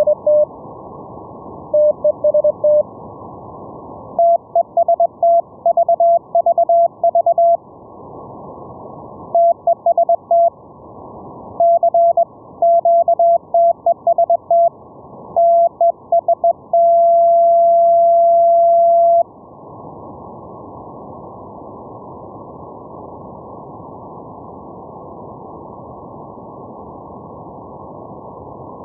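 Morse code (CW) tones keyed in dots and dashes, heard as receiver audio from a software-defined radio over a steady hiss. The tone steps up slightly in pitch about four seconds in. Around seventeen seconds in, a long held tone of about two seconds ends the keying, and only the hiss is left.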